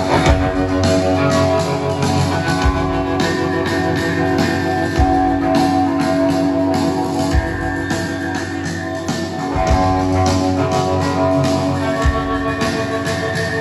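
Live rock band playing an amplified guitar intro, heard from far back in a large crowd: held guitar chords over a low drum thump about every two and a half seconds.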